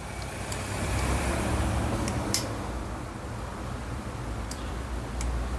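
A few light metal clicks of a small open-end wrench tightening the throttle cable adjuster nut on a motorcycle carburettor, over a steady low rumble.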